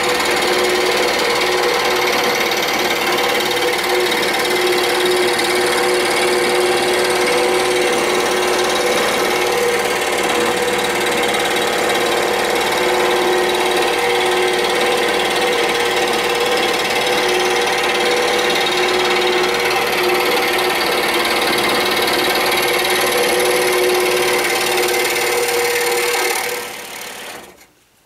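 Excalibur scroll saw running with a No. 7 reverse-tooth blade, cutting a circle out of a block of wood: a loud, steady buzz of motor and reciprocating blade with two held hums under it. Near the end the saw is switched off and the sound dies away within about a second.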